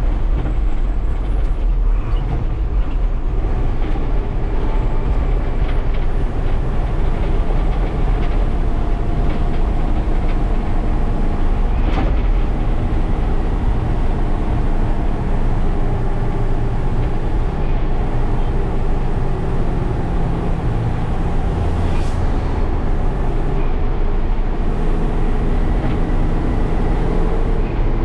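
Coach bus driving on a rough road, heard from inside the cab: a steady engine and road rumble with cabin rattles and a couple of sharp clicks, one about halfway through and one near the end.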